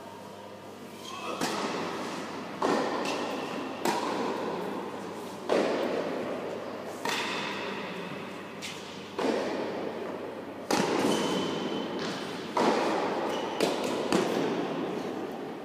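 Tennis rally: the ball is struck back and forth, sharp racket hits and ball bounces about every one and a half to two seconds. Each hit echoes in a large indoor hall.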